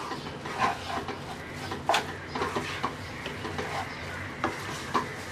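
Wooden spatula stirring and scraping cooked noodles and vegetables in a wok, with irregular scrapes and taps against the pan, the sharpest about two seconds in, over a faint sizzle as the last of the water cooks off.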